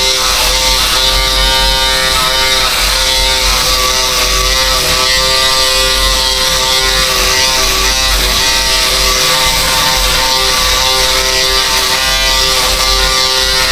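Electric hair clipper running with a steady, unchanging buzz as it shaves a head down to smooth skin.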